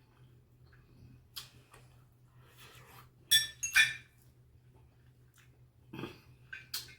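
An eating utensil clinking against a dish: a handful of short, sharp clinks, two close together near the middle and a quick few near the end.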